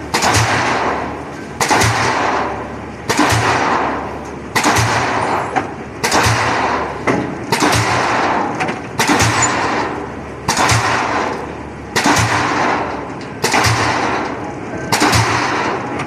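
Pile-driving hammer striking a pile in a steady rhythm, about one heavy blow every second and a half, each sharp impact followed by a fading rush of noise.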